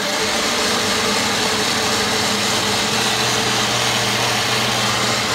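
Ninja countertop blender running steadily on its low setting, its motor humming under the loud whoosh of hot coffee, butter and cream being whipped to a froth.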